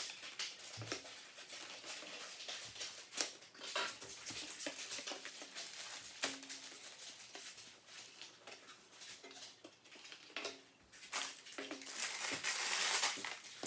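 Paper party plates set down one at a time on a glass tabletop, giving scattered light taps and clicks, with a spell of paper and plastic rustling near the end.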